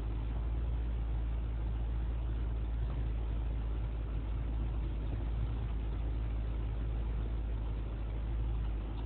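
Jeep Wrangler JK driving slowly over a sandy dirt trail, heard from inside the cab: a steady low rumble of engine and drivetrain mixed with tyre and cabin noise.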